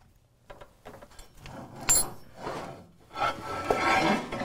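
Steel pieces being handled off-camera: a sharp metallic clink about two seconds in, then a rubbing scrape with a faint metallic ring near the end as plate steel is dragged out.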